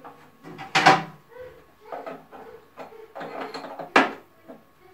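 Clattering and knocking of hand work on the plumbing fittings inside a concealed toilet cistern's service opening, as a flexible supply hose is fitted: two sharp clacks, about a second in and near the end, with scraping and rattling between.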